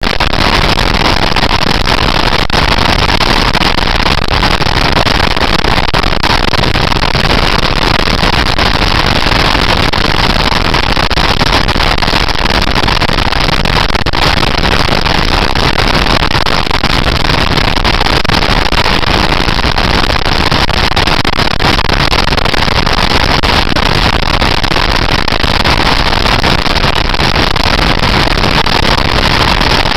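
Motorcycle being ridden at steady road speed, heard from an onboard camera: a loud, unbroken rush of engine and wind noise.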